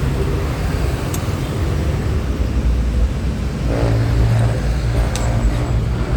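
Steady low rumble of road traffic, with a vehicle engine hum swelling about four seconds in. Two light clicks come about one and five seconds in.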